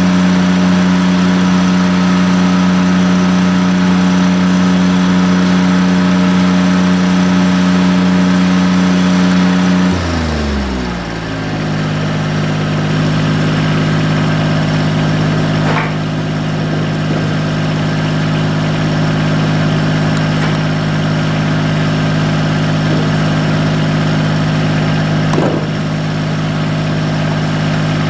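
Engine-driven welder's engine running at a steady speed. About ten seconds in, its pitch slides down and it settles into a lower, steady idle.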